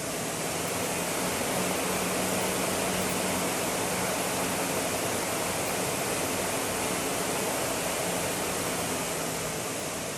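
Concept2 BikeErg's air-resistance flywheel fan spinning as it is pedalled: a steady whooshing rush with a low hum underneath, levelling off about a second in.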